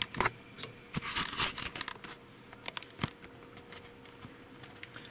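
Light handling noise: scattered clicks, taps and rustling, busiest about a second in with a sharper click near the end, as the camera is moved about. A faint steady hum runs underneath.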